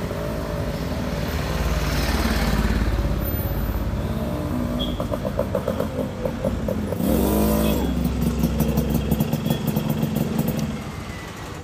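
Motorcycle engine running as the bike rides up close, revving up briefly about seven seconds in and dropping away near the end.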